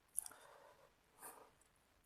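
Faint mouth sounds of a person eating seblak, in a lull between bites: a small wet click, then two short breathy hisses.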